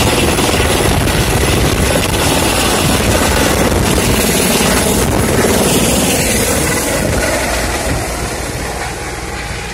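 Helicopter lifting off close by, its rotor and engine loud and steady, then fading over the last couple of seconds as it climbs away.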